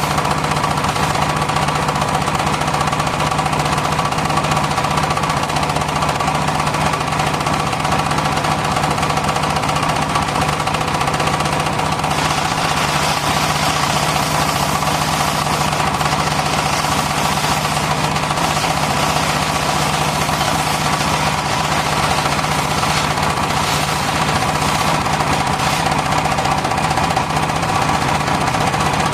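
Circular sawmill machinery running with a constant mechanical drone.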